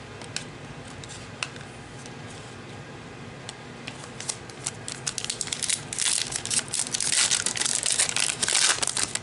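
Plastic wrapper of a baseball card pack crinkling as it is torn open. A few scattered clicks at first, then dense crackling builds and is loudest over the last three seconds.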